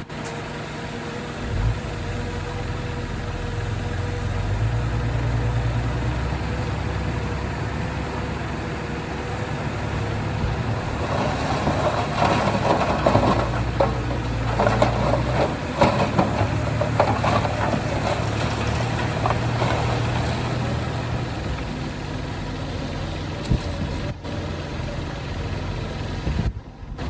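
Heavy diesel earthmoving machinery running steadily, with a stretch of metallic rattling and clanking in the middle.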